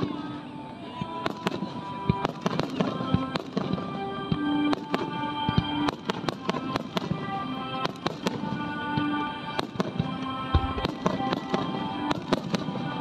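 Aerial firework shells bursting in a string of sharp bangs, with music of long held notes playing.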